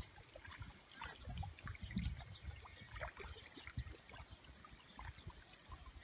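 Small waves lapping on open water: a soft trickling with scattered little splashes, over irregular low rumbles.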